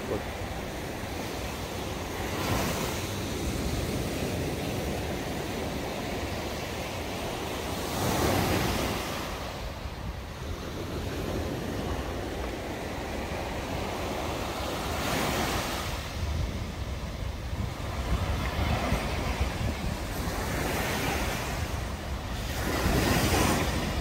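Surf breaking on a sandy beach: four waves swell and wash in, about every seven seconds, over a steady wash of sea noise. Wind rumbles on the microphone throughout.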